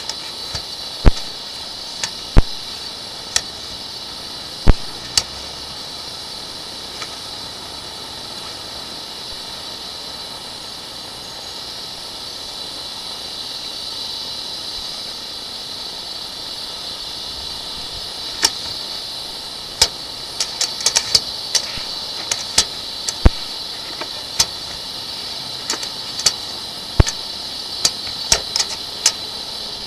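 Steady hiss with scattered sharp clicks and knocks as a sewer inspection camera's push cable is fed along a drain pipe. The clicks come thick and fast in the second half.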